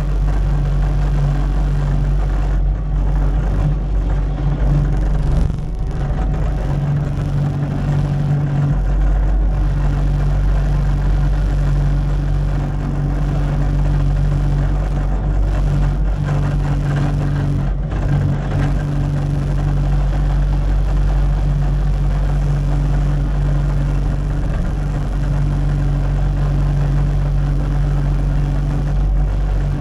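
Cat 289D3 compact track loader's diesel engine running steadily, its low hum dipping briefly about seven to nine seconds in.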